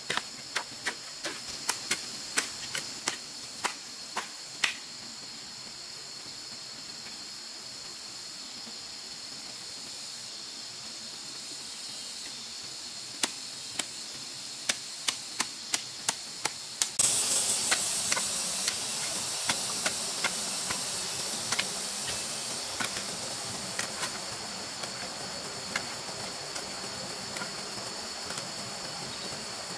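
A hoe blade chopping into wet soil and turf in runs of sharp strikes, about two a second, with a pause in the middle. Behind it runs a steady high drone of forest insects, which grows louder and more hissing a little past halfway.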